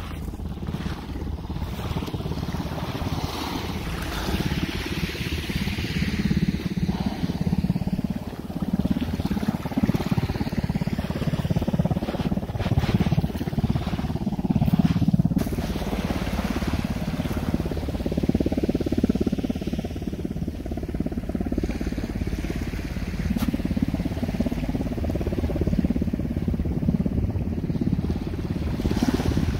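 Boat motor running steadily, with a low hum under a rushing haze of water and wind noise.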